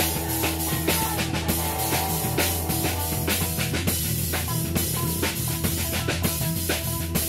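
Rock band music: a drum kit keeping a steady beat over a bass line that moves from note to note.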